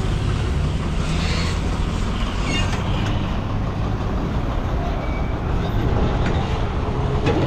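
Motor vehicle engine running with a steady low rumble, with traffic noise around it.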